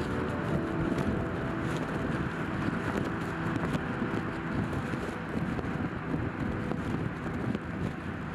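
Steady low outdoor rumble with a wind-like rush, the tail of soft held music notes fading out in the first two seconds.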